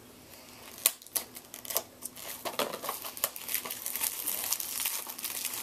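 Plastic shrink wrap being picked at and peeled off a DVD case: a few sharp clicks and taps, then continuous crinkling.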